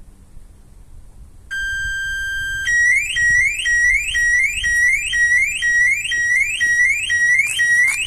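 Hornet Maxx1 Thatcham Category 1 car alarm siren going off, set off by someone leaning into the car past its interior ultrasonic and microwave sensors. About one and a half seconds in it starts as a steady tone, and a second later it switches to a rising whoop repeating about twice a second.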